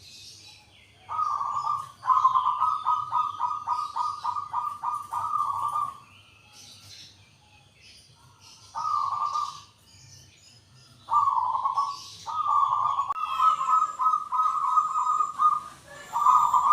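Zebra dove (perkutut) cooing in repeated phrases, each a short coo or a quick run of rapid, stuttering notes, with pauses of a second or more between them. Faint higher chirps of other small birds sound behind it.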